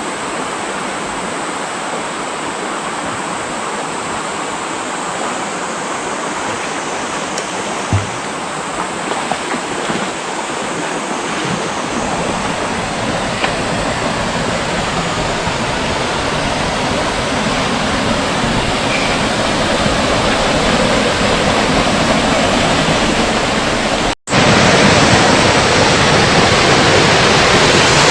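Rushing water of a mountain stream cascading over rocks, a steady noise that grows louder over time. It cuts out for an instant about three-quarters of the way through and comes back louder.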